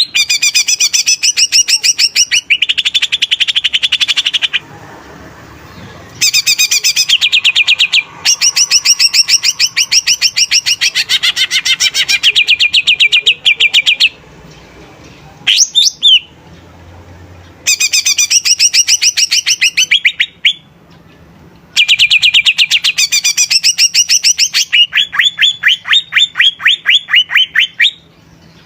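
Cucak ijo (leafbird) singing in full voice: rapid trains of sharp, high repeated notes, about ten a second, in bouts of several seconds separated by short pauses, with one brief sweeping call about halfway through.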